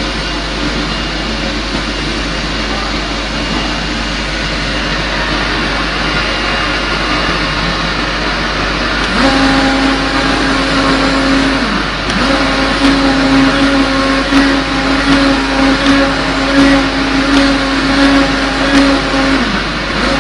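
CNC oscillating-knife gasket cutter running. A steady machine rush is joined about nine seconds in by a steady hum from the vibrating knife head, which dips in pitch briefly twice.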